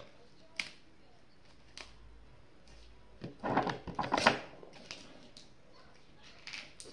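Paper being handled during crafting: a few small clicks and short rustles, with a brief cluster of louder rustling about three and a half to four seconds in.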